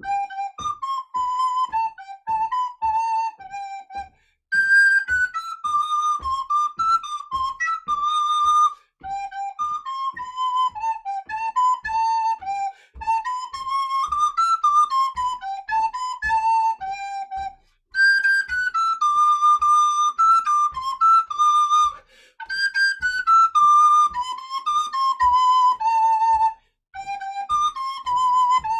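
Wooden recorder playing a simple walking-tempo tune in short phrases with brief breaths between them, over steady low thumps about twice a second of feet stepping in time.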